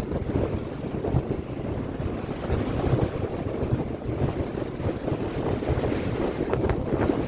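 Sea waves washing and breaking continuously, with wind buffeting the microphone in low, uneven gusts.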